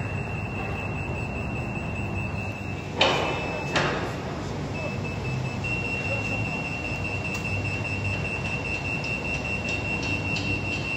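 Construction-site noise: a steady high-pitched whine over a low machinery hum, broken about three seconds in by two sharp bangs less than a second apart.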